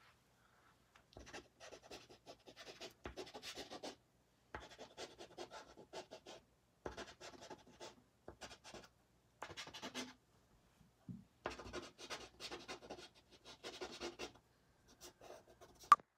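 Soft pastel stick scratching and rubbing across pastel paper in runs of quick strokes, each run a second or two long with short pauses between. A single sharp click near the end.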